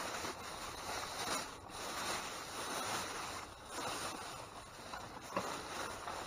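Rustling, shuffling noise of packages and bags being rummaged through in a dumpster, swelling and fading every second or two.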